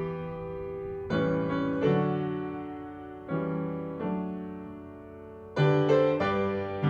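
Solo piano playing a slow hymn tune: chords struck every second or so, each ringing and fading before the next.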